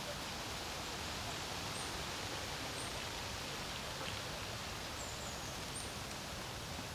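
Steady wind, an even rushing noise that does not let up. A few faint, very high, short bird chirps come through it now and then.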